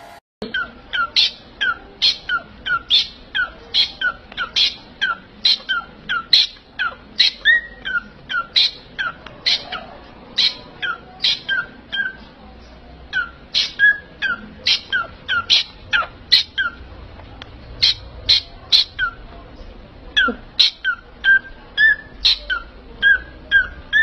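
A parrot calling over and over in short, sharp squawks, two or three a second, each dropping quickly in pitch, with a few brief pauses.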